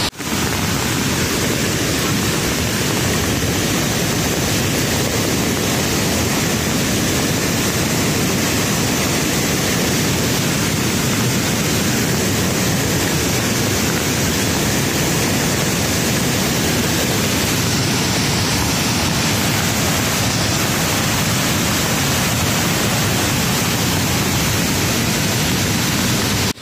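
White-water mountain stream and waterfall rushing over boulders: a loud, steady, unbroken rush of water.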